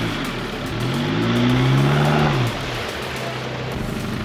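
A four-wheel-drive's engine revving up and falling back twice while driving off-road, then settling to a steadier, lower run for the last couple of seconds.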